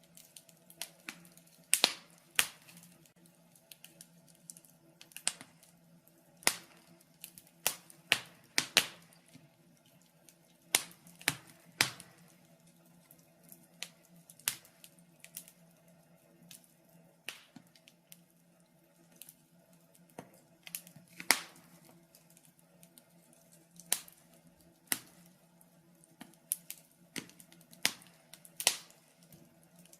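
Wood fire crackling in a fireplace: irregular sharp snaps and pops, about one or two a second, some louder than others, over a faint steady low hum.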